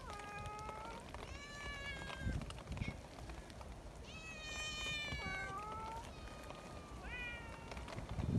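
Cats meowing, about five meows with one longer, drawn-out call in the middle that falls in pitch at its end.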